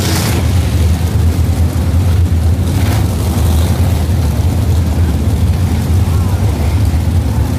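A pack of winged 410 sprint cars running past on a dirt oval, their 410-cubic-inch V8 engines making a loud, steady, overlapping drone.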